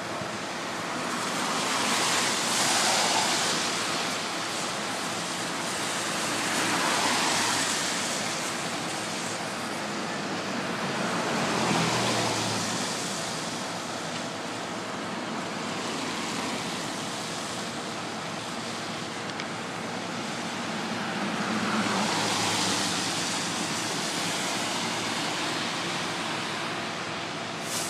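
Cars passing one after another on a rain-wet street, their tyre hiss swelling and fading with each pass, some with an engine note that drops in pitch as they go by. A short click near the end.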